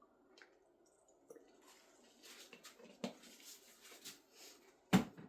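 Acrylic pouring paint squirting and sputtering wetly from a squeeze bottle, with little crackling pops. A single loud knock comes near the end.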